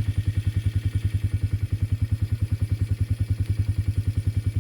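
ATV engine running at low, steady revs, with an even pulse of about ten beats a second.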